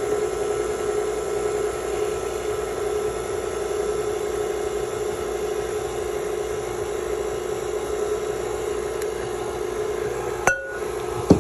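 Electric mixer running steadily at low speed, beating cake batter. Near the end the hum drops out briefly with a click, followed by a sharp clink.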